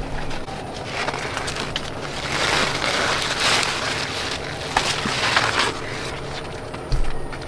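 Crunching, rustling noise, loudest in the middle, with a few sharp snaps and a low thump near the end.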